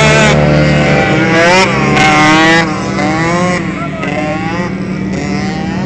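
Motocross bike engines revving on the track, several overlapping, their pitch rising and falling as the riders work the throttle. A steady lower engine drone runs beneath. The engine sound is loudest for the first two and a half seconds, then eases off.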